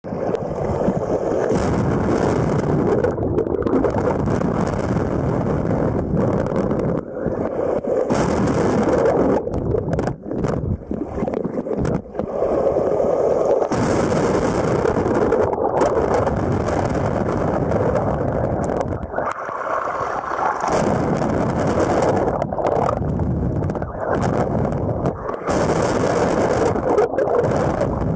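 Waves surging and splashing over intertidal rocks, with seawater washing right over the microphone again and again. The sound goes dull and thin for moments as the water covers it.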